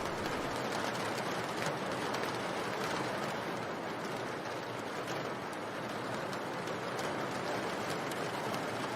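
Steady rain: an even hiss with scattered light drop ticks. A low rumble underneath fades out in the first second.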